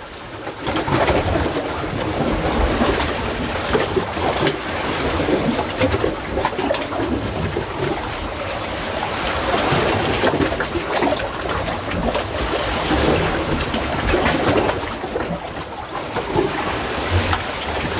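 Seawater surging and sloshing in a narrow gully between coral rocks, a continuous wash that swells and eases.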